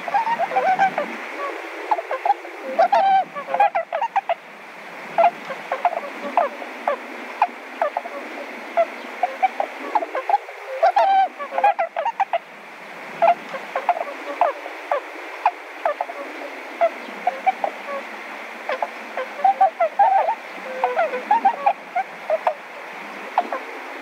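Bewick's swans calling: short, repeated honking calls, often several in quick succession, over a steady hiss.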